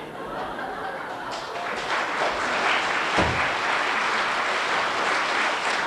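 Audience applauding, swelling over the first couple of seconds and then holding steady, with one low thump about three seconds in.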